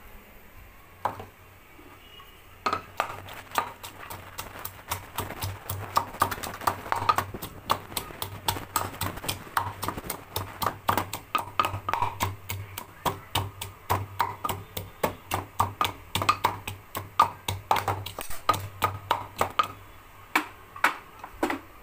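Boiled chicken being pounded in a terracotta bowl: rapid, uneven knocks, about three to four a second, starting a few seconds in and stopping near the end, over a steady low hum.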